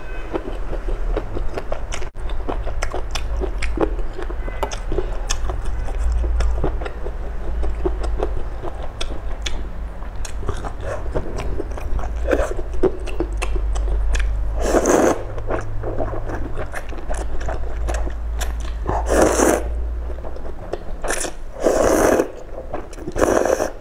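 Close-miked chewing and wet mouth clicks from someone eating spicy noodles with tofu, with several louder noodle slurps in the second half.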